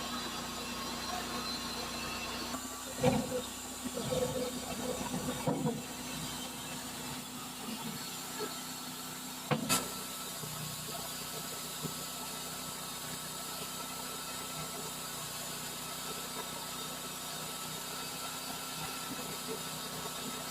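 A machine running steadily with a hiss and faint whining tones, a few knocks about three to six seconds in and one sharp click just under ten seconds in.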